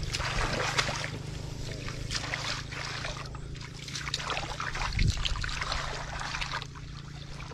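Hands sloshing through shallow muddy water, groping for fish in the mud, with many small irregular splashes and trickles.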